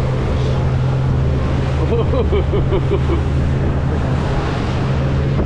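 Fishing boat's engine running steadily with a low hum, water and wind around the hull. About two seconds in, a brief burst of a voice rises over it.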